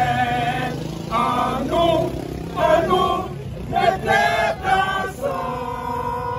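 A group of protesters, mostly men's voices, singing together in short phrases, ending on one long held note.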